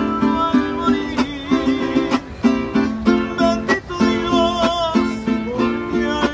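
Guitar music: rhythmic strummed chords with a wavering melody line above them.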